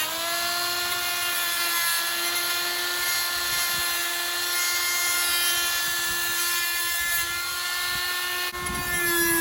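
Power tool fitted with a steel wire brush running at a steady pitch, with a hiss, as it scrubs heavy rust off the car's bodywork.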